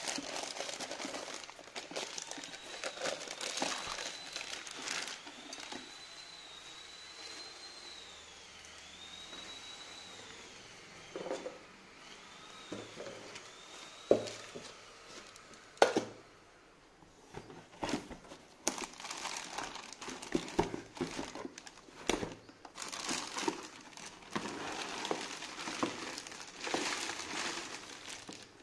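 Plastic packaging bags crinkling and rustling as stainless steel mixer-grinder jars are unwrapped, with a quieter stretch in the middle broken by a couple of sharp knocks.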